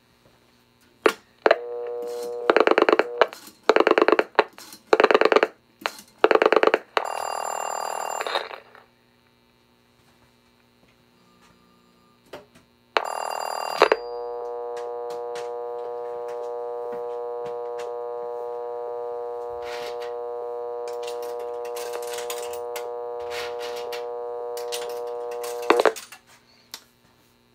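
Telephone line audio from a rotary post-pay payphone on a step-by-step exchange: dial tone, then loud pops of rotary dial pulsing in four quick trains, and two short bursts of ringing signal. After the call is answered, a steady dial tone runs for about twelve seconds. This is the trunk splitting the line and sending dial tone back to the payphone to call for a coin deposit. It cuts off with a click near the end.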